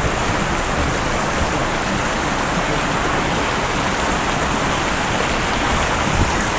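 Falling water: a loud, steady, dense rush with no change throughout.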